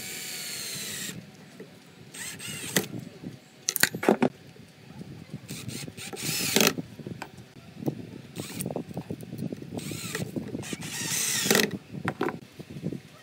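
Cordless drill/driver driving small screws through a steel hinge into pine, in several short whirring bursts a few seconds apart, with small clicks of handling between them.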